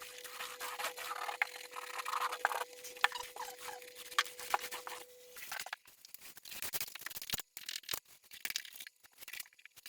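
Wallpaper being scraped and torn off a wall: irregular scraping and ripping with many sharp clicks and knocks. A faint steady hum runs under it and stops about halfway through.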